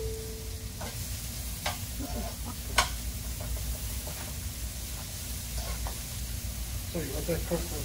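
Garlic, mushrooms and onion sizzling in a hot skillet while being stirred with metal tongs, with a few sharp clicks of the tongs against the pan. A voice is briefly heard near the end.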